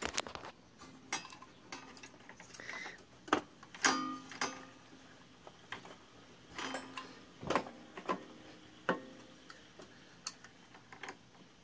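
Scattered metallic clicks and clinks of a bolt and hand tools as an electric starter is bolted onto a Briggs & Stratton opposed-twin engine.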